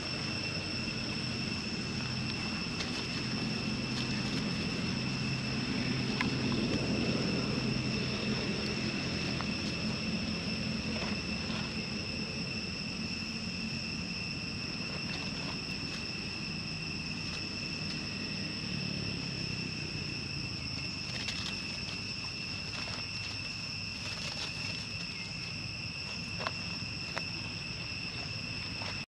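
Steady, unbroken high-pitched insect drone, with a low rumble beneath it that swells about seven seconds in, and a few faint clicks.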